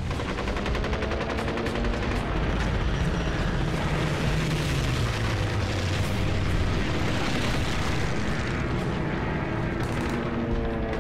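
Battle sound effects: continuous dense gunfire with rapid machine-gun fire over a low rumble of explosions.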